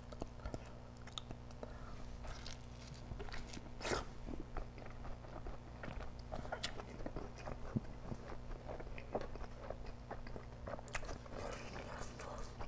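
Close-miked chewing and biting of curry-soaked naan, with many small mouth clicks and one louder one about four seconds in.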